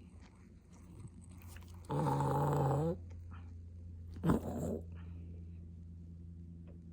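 Poodle mix dog giving a low, drawn-out growling grumble of about a second, a couple of seconds in, then a short sharp vocal sound with a falling pitch, over a steady low hum.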